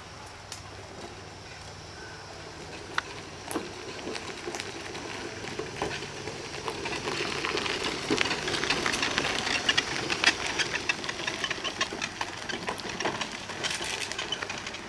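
Permobil F3 power wheelchair driving past on a dirt trail: electric drive motors running and tyres rolling over grit with many small crackles, growing louder as it approaches, loudest about eight to ten seconds in, then easing off as it moves away.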